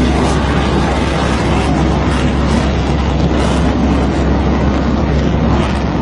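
Loud, steady aircraft engine noise, heavy in the low end, with no clear breaks.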